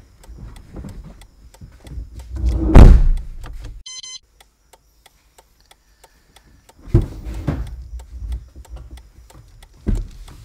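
Taxi car door and a passenger climbing out: shuffling and a loud door shut about three seconds in, then more door and movement noise from about seven seconds. A fast, steady ticking runs underneath.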